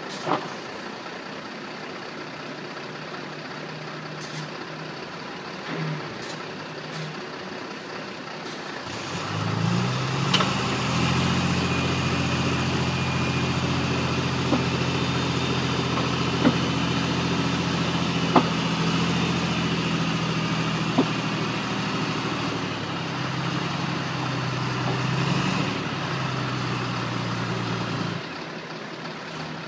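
Heavy diesel army truck engine idling, then brought up to raised revs about nine seconds in and held there with a steady, even hum as the recovery truck's crane hauls the stuck truck out of the clay. A few sharp knocks sound over it, and it drops back to idle near the end.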